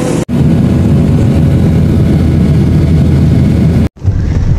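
Loud, steady jet engine noise from a Boeing 737 airliner: a deep rumble with a hiss over it. It cuts off abruptly near the end, giving way briefly to a car's engine hum.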